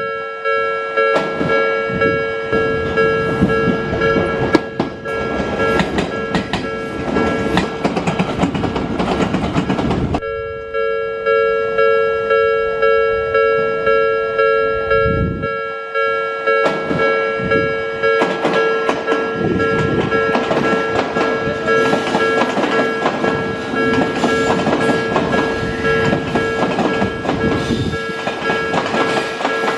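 Japanese level-crossing warning bell ringing in a steady, repeating electronic ding. Under it, Odakyu train wheels clatter over rail joints. The clatter stops suddenly about ten seconds in, leaving the bell with a low rumble, then resumes from about seventeen seconds as an Odakyu 3000-series eight-car train runs over the joints.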